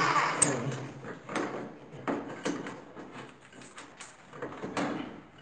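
Electric rotary hammer drill winding down as it stops, followed by scattered light knocks and scrapes in the broken concrete rubble.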